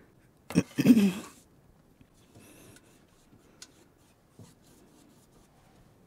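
A brief non-speech vocal sound about a second in, then faint rubbing with a sharp click and a light knock as a stretched canvas is handled on its easel.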